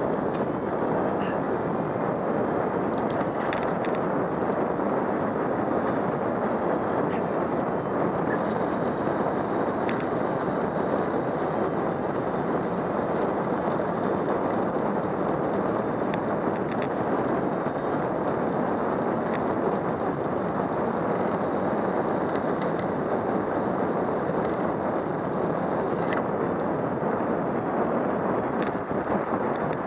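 Steady wind rushing over the microphone of a camera on a road bicycle descending at speed, with a few faint ticks scattered through it.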